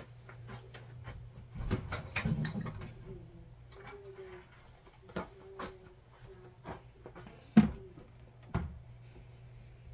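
Small objects being handled and set down: scattered clicks and rustles, a rattling stretch about two seconds in, and a sharp knock about seven and a half seconds in with a softer one a second later, over a low steady hum.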